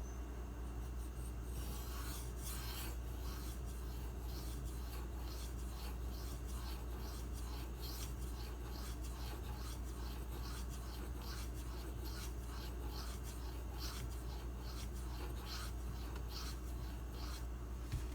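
M390 steel knife blade being stroked back and forth across the 4000-grit side of a Bernal Cutlery Takarazukushi combo whetstone: a steady run of repeated scraping strokes.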